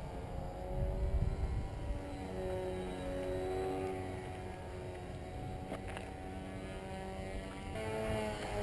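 Electric motor and propeller of an RC flying wing buzzing overhead, its pitch rising and falling as the throttle and distance change. Wind rumbles on the microphone, strongest about a second in.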